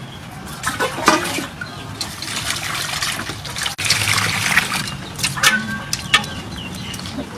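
Water pouring and splashing over cubed aloe vera gel in a perforated steel colander as hands rinse the cubes, with a few sharp splashes.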